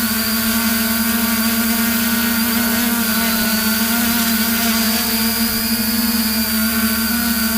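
Camera drone's motors and propellers running steadily, a loud even hum with a high whine on top.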